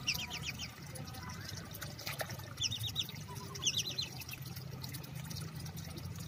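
Whistling ducks calling in short bursts of rapid high whistled notes, three bursts of four or five notes each, over a steady trickle of water.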